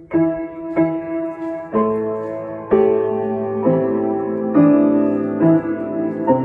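Slow piano music: notes and chords struck about once a second, each left to ring.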